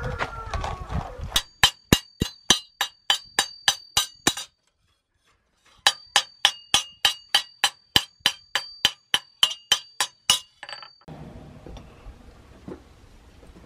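Blacksmith's hammer striking steel on an anvil in quick, even blows, about four a second, each blow ringing metallically. Two runs of strikes with a short break between them.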